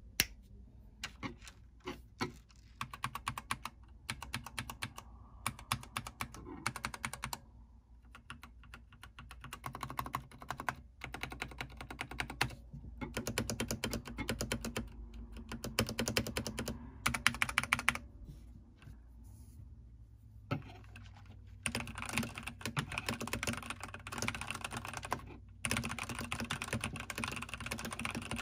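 Typing on a Keychron mechanical keyboard with stock, unlubricated red linear switches: runs of keystroke clacks in bursts with short pauses, turning into faster, steady typing in the last few seconds.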